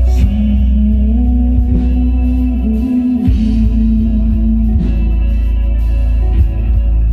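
Live rock band playing: electric guitars and electric bass over drums, the bass holding low sustained notes that drop out briefly about three seconds in.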